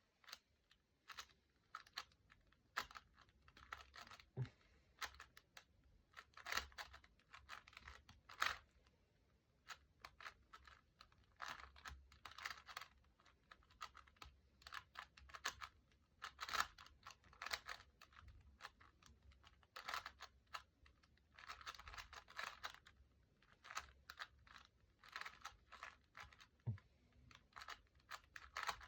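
Plastic 3x3 Rubik's-brand cube (a 2019 edition) being turned quickly in a solve: irregular runs of faint clicking and clacking layer turns, with brief pauses between runs.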